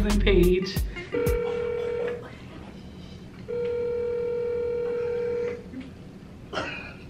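Telephone ringing tone on a call: two long, steady electronic beeps with a pause between them, the second about two seconds long. A short, brief sound follows near the end.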